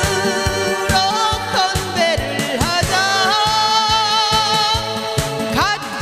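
A woman singing into a microphone over a backing track with a steady drum beat, holding one long note with vibrato in the middle.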